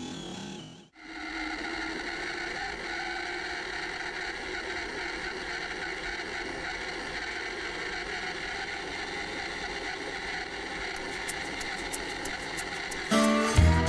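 Scale RC crawler's electric motor and gear drivetrain whining steadily as the truck drives, heard through a camera mounted inside its cab. Louder music comes in just before the end.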